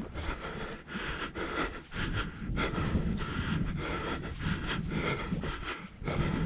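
A hiker breathing hard on the climb, in irregular noisy breaths, with wind rumbling on the microphone.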